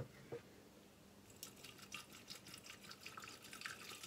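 Water poured from a plastic bottle into a glass carafe: faint splashing and dripping that becomes busier about a second and a half in.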